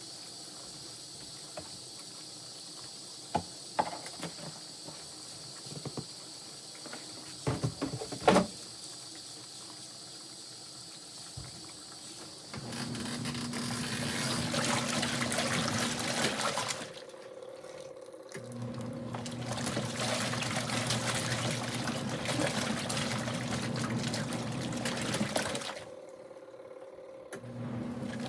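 Kuppet portable washing machine's wash motor and pulsator churning water and clothes, with a steady motor hum. It runs in spells of several seconds with short pauses between, as the agitation reverses. A few light knocks come before the wash starts, about a third of the way in.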